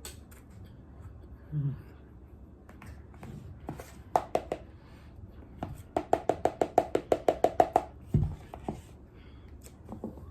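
Close-up squeaky chewing of a big spoonful of food, sharp clicks at first, then a quick run of about a dozen loud squeaks at six or seven a second. A short closed-mouth 'mm' follows.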